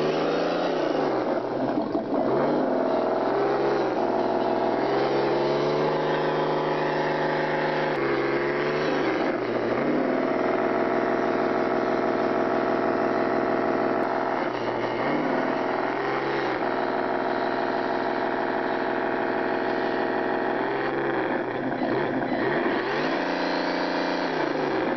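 Radio-controlled scale 4x4 truck's drive motor whining steadily as it crawls through mud and water. The pitch drops and climbs back several times with the throttle.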